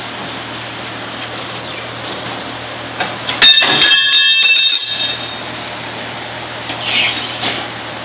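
Dry rubber tire bead squealing as the bead tool drags it over the rim on a turning tire-changer turntable, with no lubricant on the bead. A few clicks come just after three seconds in, then a loud squeal of about a second and a half, and a shorter rasp near the end.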